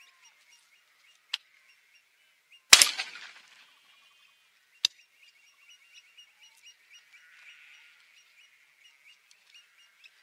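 A WW Greener 12-gauge shotgun fires once about three seconds in, the report dying away over most of a second, with a sharp click shortly before and another shortly after it. Birds call faintly throughout in short, repeated chirps.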